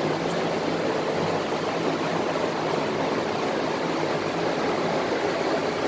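Steady rushing hiss of compressed-air paint-spraying equipment, with a faint low hum under it. It cuts in suddenly and stops suddenly just before the end.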